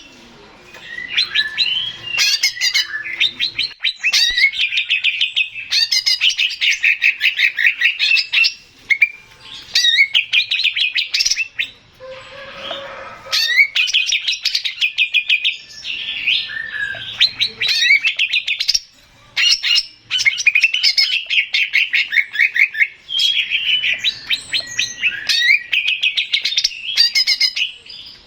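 Male green leafbird (cucak ijo) singing: loud bouts of rapid chirps and trills, each a few seconds long, with short pauses between them.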